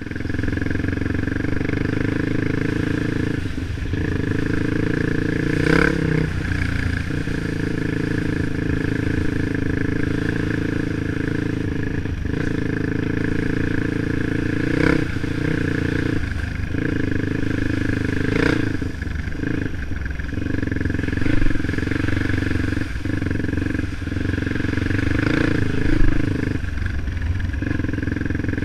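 Offroad motorcycle engine running at a fairly steady pitch on a trail ride, with a few sharp knocks and clatters along the way.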